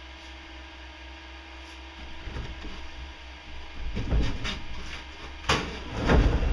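A low steady hum, then shuffling and knocks from about two seconds in, a sharp clack about five and a half seconds in, and a heavy scraping thud near the end as the large wooden crate is hauled on by a rope.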